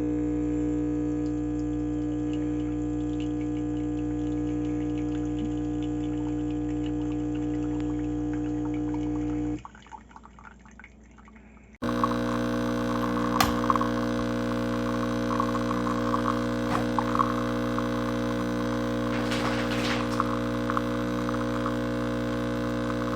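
De'Longhi Dedica Arte espresso machine's pump humming steadily while coffee pours and drips. The hum stops for about two seconds near the middle, then starts again with light dripping and crackling.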